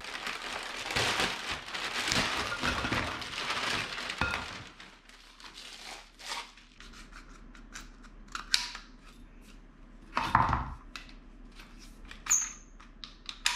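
Plastic packaging crinkling and rustling as the kayak paddle pieces are pulled out of their bag, then scattered clicks and knocks of the aluminium four-piece paddle's shaft sections being handled and fitted together, with a louder thump about ten seconds in and a brief high squeak near the end.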